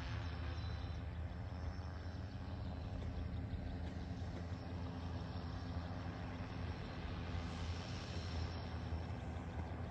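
Joyance 16L agricultural sprayer-spreader drone's rotors humming steadily in flight, an even low hum with no break.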